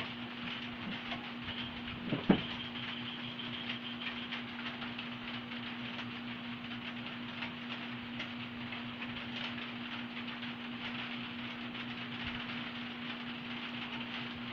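Steady low hum with an even hiss behind it, faint scattered ticks, and one sharp knock a little over two seconds in.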